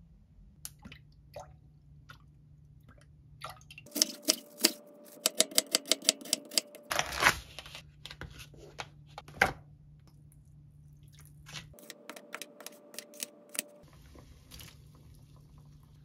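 Kitchen knife chopping vegetables on a wooden cutting board: two runs of quick sharp knocks, several a second, with a few single taps between them.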